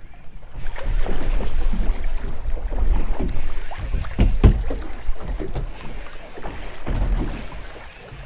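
Wind buffeting the microphone on a small fishing boat at anchor, with water slapping the hull and irregular knocks and thuds.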